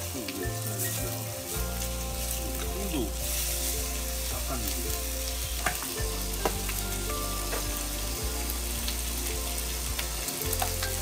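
Thin slices of frozen pork belly (naengsam) sizzling as they fry, with a few sharp pops of spattering fat.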